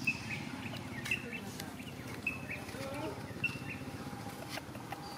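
A bird calling: a short high chirp that drops at its end, repeated four times about once a second, over a steady low rumble.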